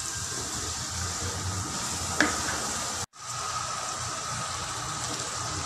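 Chopped vegetables sizzling as they fry in oil in a nonstick wok, stirred with a wooden spatula that knocks the pan once about two seconds in. The sound cuts out for a moment just after three seconds, then a steady sizzle of masala cooking in the wok goes on.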